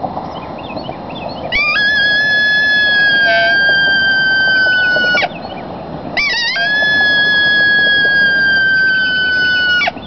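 Two long howls blown on a Barnett Tribute Howler coyote call. Each sweeps up quickly, then is held and slowly sinks in pitch. The second ends with a sharp drop.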